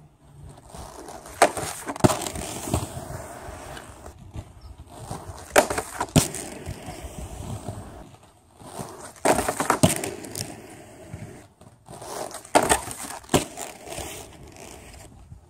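Aggressive inline skates rolling on concrete, with sharp clacks, coming in pairs every few seconds, as the skates land on and grind along a homemade plastic pipe rail and drop back onto the concrete.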